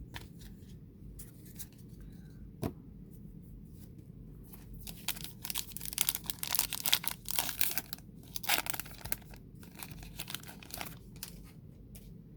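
Plastic wrapper of a baseball card pack being torn open and crinkled, in dense bursts of crackling over several seconds, after a single sharp click.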